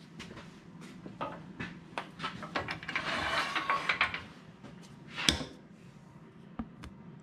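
Handling noises at a wood lathe as tools and a clear plastic centring disc are picked up: scattered clicks and light knocks, a couple of seconds of rustling and scraping in the middle, and one louder knock about five seconds in.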